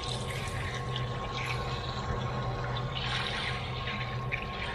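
Carburetor parts being dunked into a tub of Gunk parts-cleaner solvent, the liquid sloshing and splashing irregularly over a steady low hum.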